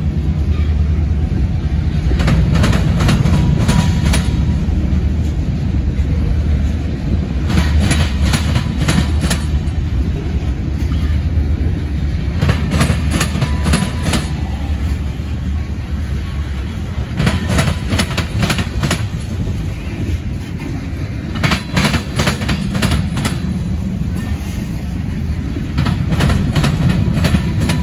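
Freight train of covered hopper cars rolling slowly by in a switching move, with a steady low rumble from the wheels. A cluster of clacks comes about every four to five seconds as each car's wheel sets pass over joints in the track.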